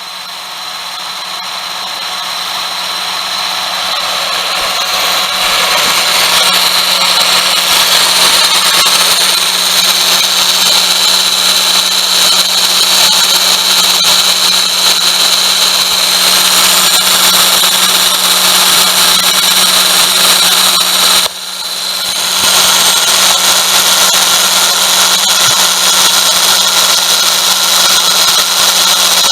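Worn pulley bearing on a Daihatsu Tanto (L375S) making its abnormal noise while the air conditioning runs: a steady mechanical noise with a high whine over a low hum. It builds up over the first several seconds, cuts out briefly about 21 seconds in, and comes straight back.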